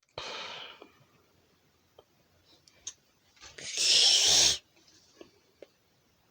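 Animated snoring Santa toy playing its recorded snore: a short breath near the start, then a loud snorting snore lasting about a second just before the middle. A few faint clicks come in between.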